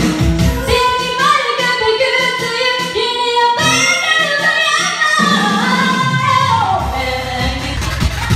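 Woman singing karaoke through a microphone and PA over a backing track, one melody line held and sliding from note to note. Heavier bass comes in near the end.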